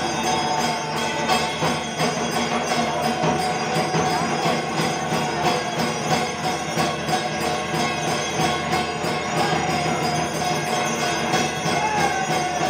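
The loud din of a Hindu temple arti: bells and metal percussion ringing and clanging without pause over a fast, even beat, with a held tone running through it.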